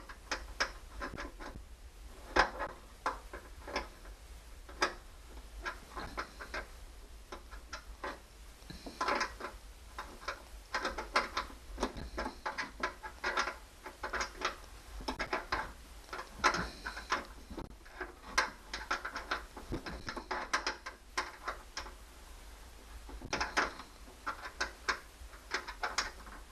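Irregular clusters of small, sharp clicks and rattles as a screw is turned and a hand tool is worked in a tight space.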